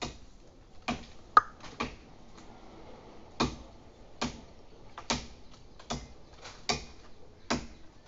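A blade chopping into a tree branch: sharp strikes on wood, about one a second, with a quick run of three near the start and then an even pace.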